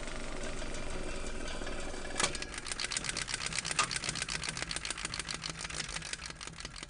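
Film projector clatter: a steady hiss, then about two seconds in, a fast, even rattle of about ten clicks a second starts and slowly fades away.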